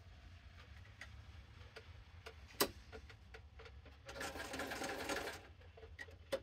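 Electric sewing machine stitching in one short run of about a second and a half, starting about four seconds in, among scattered small clicks, one louder a little after two seconds in.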